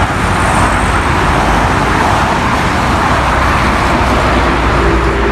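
Steady road traffic noise: cars and other vehicles running on a busy motorway, a continuous rumble and hiss.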